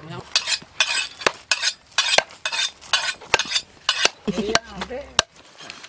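Knives chopping raw pork on a wooden log block: quick, irregular strikes, about three or four a second, with scraping of blade on meat in between.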